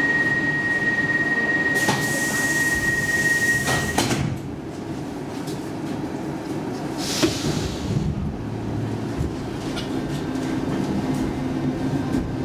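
Stockholm Metro C14 train standing at the platform with its doors open: a steady high door-closing warning tone sounds for about four seconds with a hiss of air, then stops with a sharp knock as the doors shut. A second short hiss of air follows about three seconds later over the train's steady low hum.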